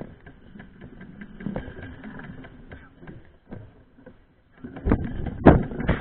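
Mountain bike rattling and knocking over a rough, wet forest trail, heard through a camera mounted on the bike. Irregular clicks throughout, with a couple of louder thumps about five seconds in.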